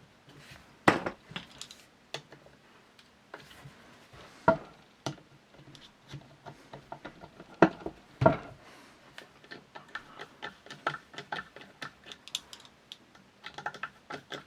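Irregular small clicks and knocks of metal rifle parts and tools being handled during hand reassembly of a Berthier carbine, with a few sharper knocks about a second in, midway, and twice around eight seconds.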